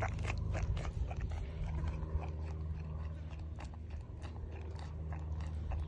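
Elderly miniature pony chewing and smacking its lips slowly on a frozen fruit ice cream close to the microphone: irregular wet clicks and crunches, several a second, over a steady low rumble.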